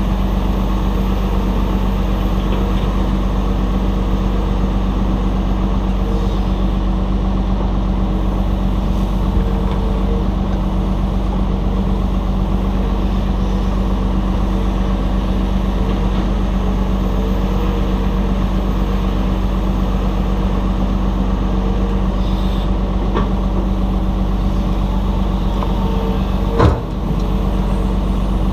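Heavy diesel engines running steadily, an articulated dump truck idling while a Cat 323 excavator works beside it loading it. A single sharp knock comes near the end.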